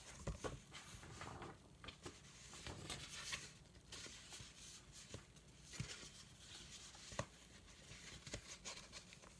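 Faint handling noise of a paper comic book: soft rustles and a scattering of light taps and clicks, over a low room hum.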